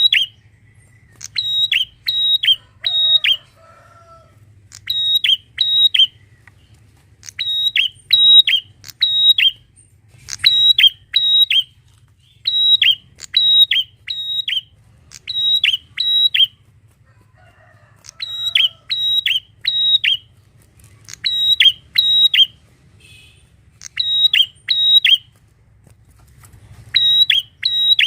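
Prinia (prenjak) singing loud, sharp, clipped notes in quick runs of three or four, the runs repeating about every second and a half over a faint low hum.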